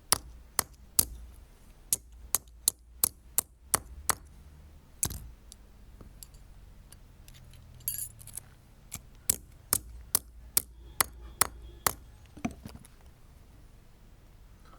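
A hammer striking a thin 1/2-inch steel pipe strap to beat it flat: sharp metallic clinks at about two to three blows a second, in two runs with a pause of a few seconds between them, stopping a couple of seconds before the end.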